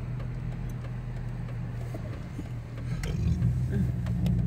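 Car engine and road noise heard from inside the cabin: a steady low hum that grows louder about three seconds in as the car pulls forward.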